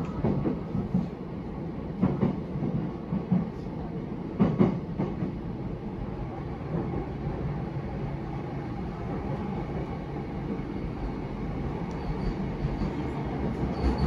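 Running noise inside a JR East E233-7000 series electric train: a steady rumble of wheels on rail, with a few sharp knocks from the track in the first five seconds.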